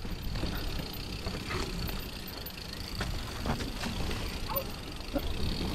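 Mountain bike rolling down a dirt trail: steady tyre rumble and wind noise, with a few faint knocks and rattles from bumps in the track.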